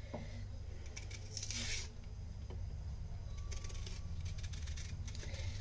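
Serrated kitchen knife cutting and scraping the thick peel off raw green bananas: faint intermittent scrapes and small clicks over a steady low hum.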